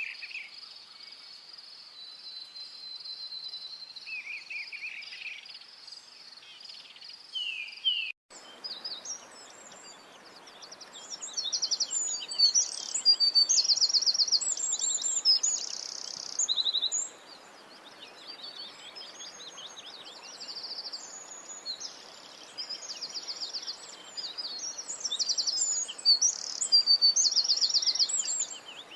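For the first eight seconds an insect drones steadily and high, with a few short bird notes. An abrupt cut follows, and after it many birds call over a steady background hiss, with rapid trills and chirps.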